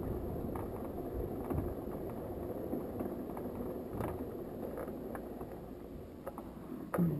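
Muffled low rumble from a single-seater race car rolling slowly at low speed, heard through its onboard camera, with a few faint light clicks.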